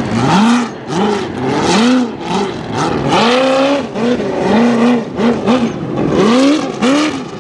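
Off-road race buggy's engine revving up and down again and again, about twice a second, with one longer pull about three seconds in, as the throttle is worked over rough ground.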